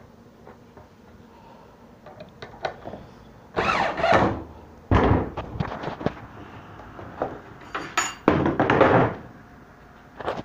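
Wooden beehive bottom board being handled on a table saw top: a long scraping slide about three and a half seconds in, a sharp thunk about five seconds in as it is set down, and another scraping slide near the end, with small clicks between.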